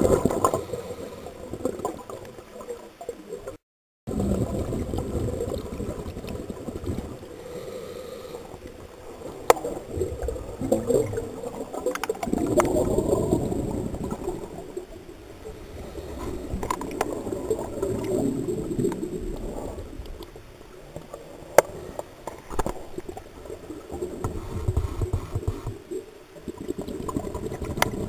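Scuba regulator breathing heard underwater through a camera housing: muffled rushing and gurgling of exhaust bubbles that swell and fade every few seconds, with a few sharp clicks. The sound cuts out completely for a moment just before four seconds in.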